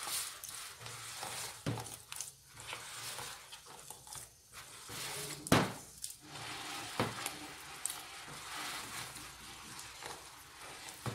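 Hand squeezing and kneading wet, sticky cheese-bread dough of sweet tapioca starch and egg in a bowl, a continual squelching and rustling with a few knocks against the bowl, the loudest about halfway through.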